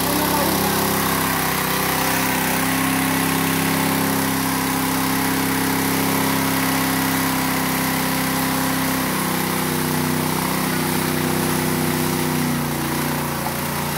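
Small gasoline-engine portable water pump running steadily, with water gushing from its discharge hose onto rock.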